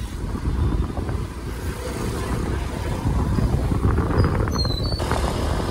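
Wind buffeting the microphone on a moving motor scooter or motorbike, a loud steady low rumble with the ride's engine and road noise beneath it.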